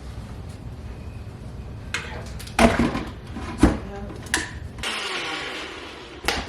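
Blender running on a thick frozen acai and fruit mix, a low steady rumble with a couple of sharp knocks, stopping about five seconds in.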